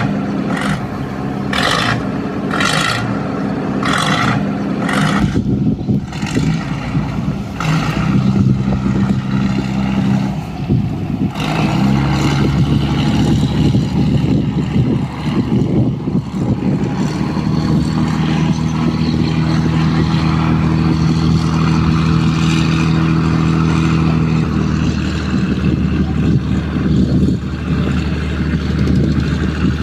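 Cargo boat's Hino six-cylinder diesel engine running, its pitch shifting as the revs change, then holding steady from about halfway through. A string of sharp knocks, roughly one every two-thirds of a second, sounds over it in the first few seconds.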